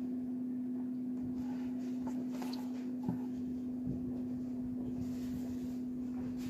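A steady low hum at one even pitch, with a faint knock about three seconds in.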